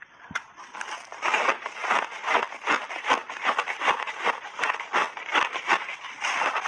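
Teeth biting and crunching through a frozen blueberry ice block coated in matcha powder: a fast run of crisp crunches, about three a second, starting a moment in.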